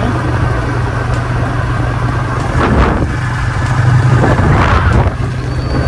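TVS Apache RTR 160 motorcycle's single-cylinder engine running steadily at cruising speed, with wind and road noise, heard from the rider's seat. Twice a brief rushing swell of noise rises and fades.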